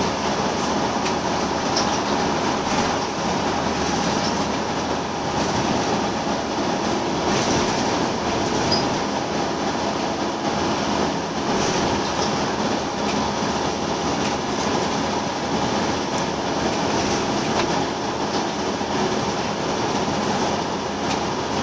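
Inside a Scania L94UB Wright Solar single-deck bus on the move: the steady drone of its rear-mounted Scania 9-litre five-cylinder diesel mixed with road and tyre noise, with occasional light rattles from the body and fittings.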